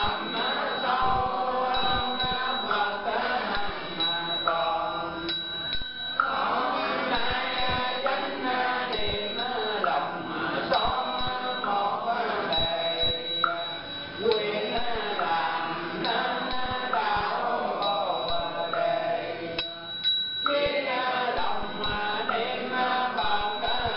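A group of Buddhist monastics and followers chanting a Vietnamese Buddhist liturgy together, with a steady knocking beat under the voices.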